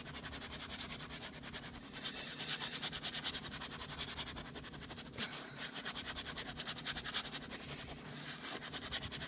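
Horsehair brush scrubbing a leather car seat in rapid back-and-forth strokes, working leather cleaner into a heavily soiled, oily spot.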